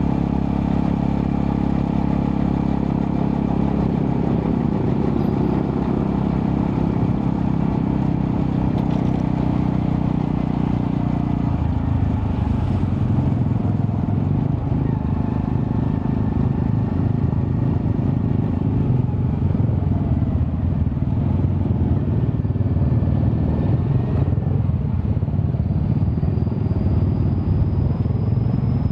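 Honda Astrea Prima 110cc motorcycle engine running under way through a custom underbelly exhaust with a resonator. Its note changes about twelve seconds in.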